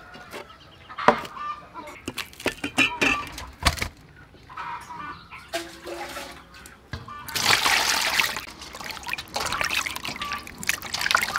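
Light knocks and handling sounds of food being set down, then, about seven seconds in, water pouring into a large aluminium basin, followed by splashing as a piece of raw beef is rinsed by hand.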